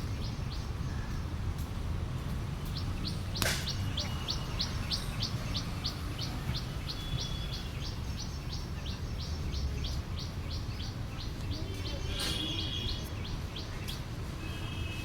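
A bird calling with a long series of short, high chirps, about three a second, over a steady low rumble. A sharp click sounds once, a few seconds in.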